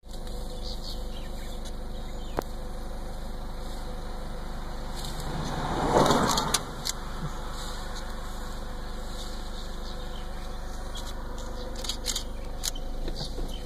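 Steady low hum of a vehicle's engine running, heard from inside the vehicle, with a louder rush of noise swelling and fading about six seconds in and a few sharp ticks near the end.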